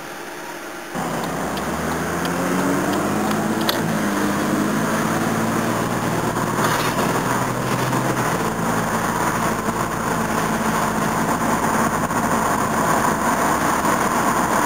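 Toyota Cressida's 5M straight-six engine pulling the car away. Its note comes in suddenly about a second in, climbs in steps as it gathers speed, then settles to a steadier run. Under load the engine runs without the knock it makes when unloaded.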